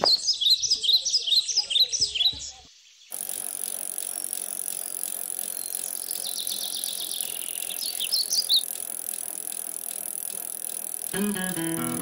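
Birds chirping rapidly for the first couple of seconds. After a cut, bicycles riding by with a steady hiss and faint bird chirps. An acoustic guitar starts strumming near the end.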